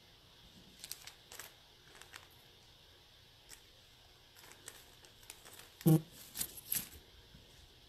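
Crinkling and rustling of packaging being handled, with scattered light crackles. One louder short sound comes about six seconds in.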